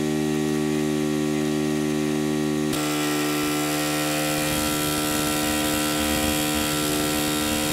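Homebuilt single-cylinder engine running at a steady speed of about 4,500 rpm on a water-cooled friction-brake dynamometer, an even, constant hum. About three seconds in, the sound turns brighter and rougher.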